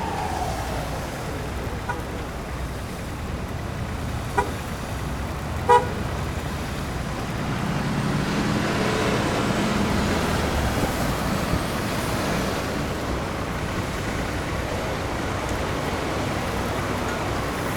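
Three short horn toots, the third the loudest, over steady city street traffic. A heavy engine rumbles past in the middle.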